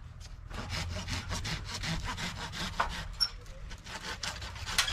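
Hand pruning saw cutting through a tree branch in quick, even back-and-forth strokes.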